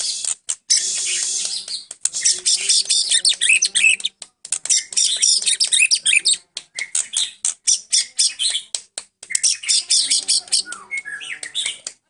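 White-rumped shama (murai batu Medan) singing a fast, varied song of chirps and trills in phrases broken by short pauses. Its song is filled in with learned imitations (isian) of other birds such as canary, cililin, cucak jenggot and prenjak.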